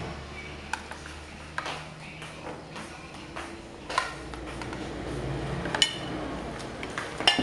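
Spoons and forks clinking and tapping against china plates and bowls: scattered single clinks about once a second, some with a short bright ring, over a low steady hum.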